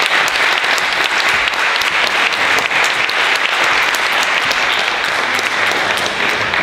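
Audience applauding steadily, with a dense patter of claps, beginning to die down at the very end.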